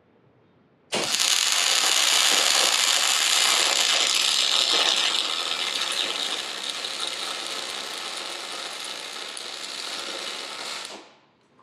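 Electric arc welding: one continuous weld about ten seconds long, fusing an inner C knuckle onto a 14-bolt axle tube. The arc starts abruptly about a second in, eases somewhat in loudness around the middle, and cuts off near the end.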